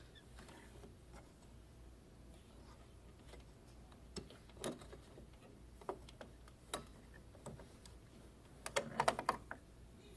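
Scattered light clicks and taps, with a quick run of several clicks near the end, over a faint steady low hum.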